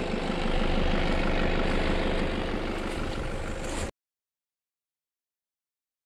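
Off-road 4x4's engine running close by with an even low pulse. About four seconds in the sound cuts off abruptly into complete silence.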